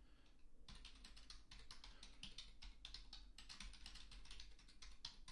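Faint typing on a computer keyboard: a quick run of keystrokes starting under a second in, with short pauses between words of a terminal command.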